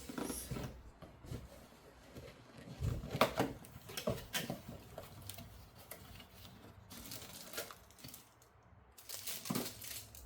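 Packaging and parts of a photography lighting kit being handled during unboxing: scattered clicks and knocks, with rustling of plastic wrapping, loudest near the end.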